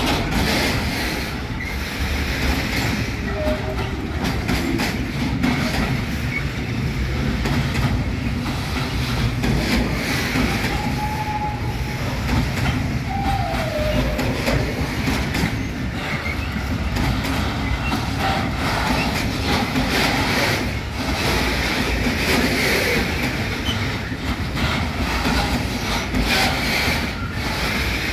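Freight wagons loaded with tank containers rolling past as the train pulls out, the wheels clattering steadily over the rail joints. A couple of short wheel squeals rise out of the clatter near the middle.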